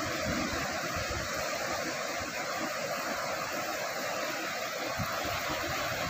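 Ocean surf breaking and washing in over a shallow beach: a steady rushing hiss, with uneven low rumbles of wind on the microphone.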